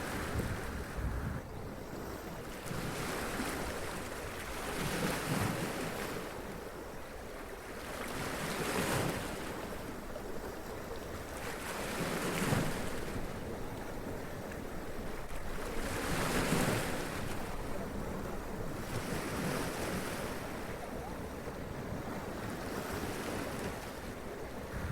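Sea waves running up onto rocks and splashing, each wave a swell of rushing surf that comes about every three to four seconds.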